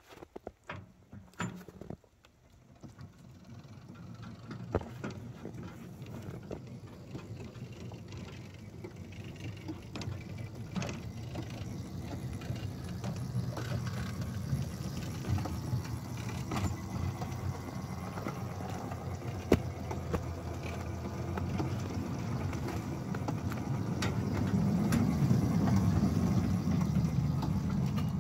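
Miniature 7½-inch-gauge locomotive running along the track, a steady mechanical hum from its drive and wheels that builds slowly and is loudest near the end. A few clicks in the first two seconds.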